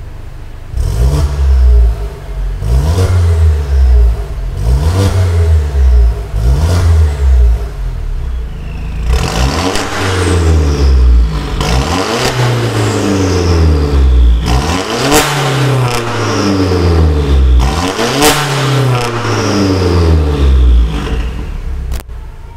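Mercedes W204 C180 Coupe's four-cylinder engine free-revving at standstill through an Armytrix valvetronic exhaust: a series of short throttle blips, then from about nine seconds in longer, louder revs with the exhaust valves open, each rise followed by a falling coast-down, with a sharp crack at the top of two of the later revs.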